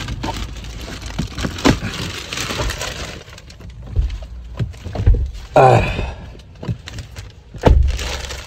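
Protective plastic film being peeled and crinkled off a new car's interior door trim, with several sharp knocks as hands hit the trim panels.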